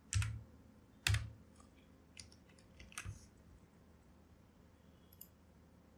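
Computer keyboard keystrokes: a few separate key presses about a second apart, the first two the loudest, then a couple of faint clicks near the end.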